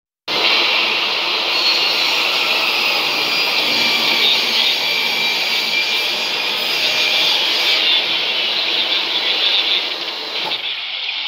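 Steady crowd noise from a football match broadcast, a continuous roar with no commentary. It cuts out briefly at the very start and gets duller and a little quieter near the end.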